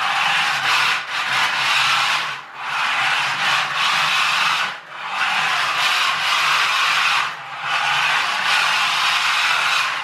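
Small electric motor and gearbox of a radio-controlled toy pickup truck running in stretches under throttle, a loud steady whirr that cuts out briefly three times as the throttle is let off. The motor is a toy-grade one run on a 2S LiPo.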